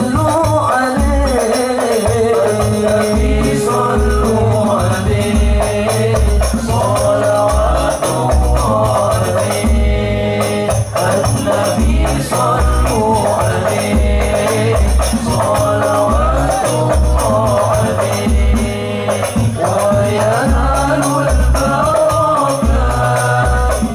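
Al Banjari sholawat group: men singing a devotional Arabic chant together over a steady beat of frame drums, with a regular deep drum thump, amplified through microphones.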